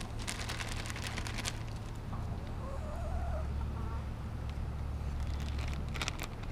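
Domestic hens giving a soft rising-and-falling call a couple of seconds in, over a steady low rumble. Short crackling rustles come near the start and again near the end.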